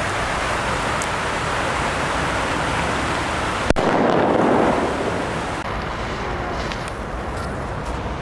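A firecracker goes off underwater in a fountain pool about four seconds in: one sharp bang, then the splash of the thrown-up water falling back. Steady rushing of the fountain jets runs underneath.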